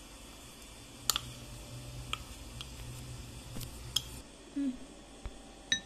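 Spoon and bowl knocking against a fluted glass bowl as flour is spooned in and the bowl is tipped out: a few sharp, separate clinks, the loudest about a second in and near the end.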